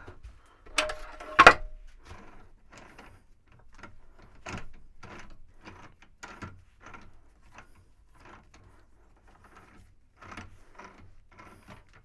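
Lathe chuck being opened with a chuck key: a sharp metal clack about a second and a half in, then a run of short clicks and scrapes, about two a second, as the key is turned and the jaws open.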